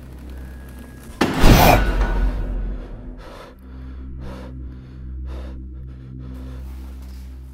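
Dark, droning horror-style soundtrack music with a sudden loud crashing hit about a second in that dies away over a second or so, followed by a few short hissing pulses about half a second to a second apart.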